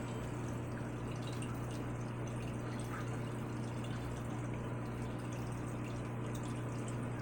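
Aquarium filter running: a steady low hum with water trickling and dripping into the tank.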